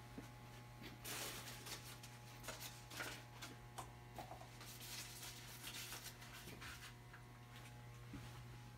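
Light rustling, taps and clicks of plastic mixing cups and small items being handled on a wooden workbench, over a steady low mains hum.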